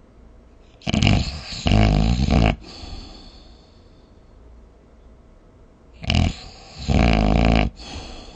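A person snoring heavily: two loud snores about five seconds apart, each a short snort followed by a longer rattling snore.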